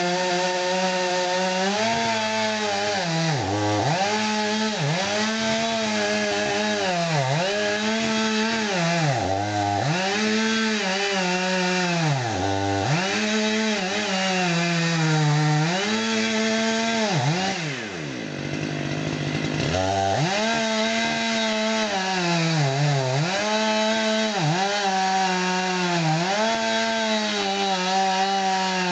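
Stihl MS500i fuel-injected two-stroke chainsaw running at high revs while cutting cedar, its pitch dipping every second or so as the chain bogs in the wood and then recovering. About two-thirds of the way through, the engine falls off briefly and then revs back up to full speed.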